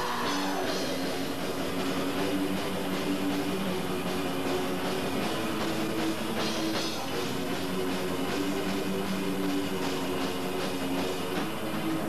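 Live black/doom metal band playing: distorted electric guitars holding low, sustained notes over a drum kit, with drum strikes at a steady beat.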